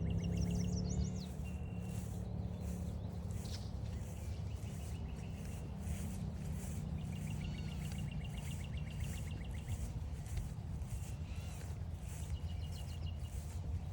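Songbirds singing in short, rapid trills of repeated notes several times, over a steady low rumble. Footsteps on a trail tick along about twice a second underneath.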